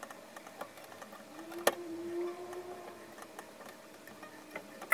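Faint ticks and small clicks of heavy fluorocarbon leader line being wrapped over and under tensioned braid by hand while tying an FG knot, with one sharper click about a second and a half in. A faint low hum rises and falls slightly in pitch underneath.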